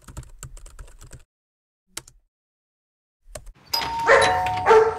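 Computer keyboard typing in a quick run of clicks, then a single click about two seconds in. Near the end a doorbell chimes two tones, high then lower, among other louder sounds.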